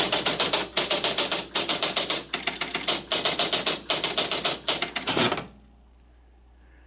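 1974 Gottlieb Out of Sight electromechanical pinball machine clattering through its game-start reset. Relays, stepping units and score reels click rapidly in repeating bursts a little under a second apart, and the clatter stops about five and a half seconds in.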